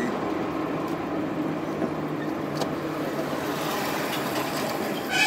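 Steady car engine and road noise heard from inside a moving car's cabin.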